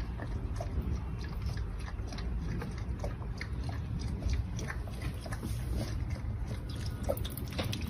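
An animal chewing: many small, irregular crunching clicks over a steady low hum.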